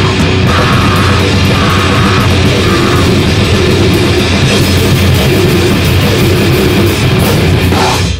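Loud, distorted hardcore punk music, with drum kit and electric guitar playing flat out. It stops abruptly at the very end as the track finishes.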